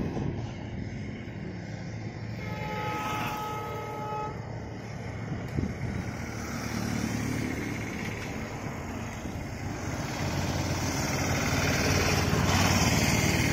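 A two-tone horn sounds once for about two seconds, over a steady background rumble. Near the end a motorcycle and a small three-wheeled goods carrier pass close by, and their engines and tyre noise swell to the loudest point.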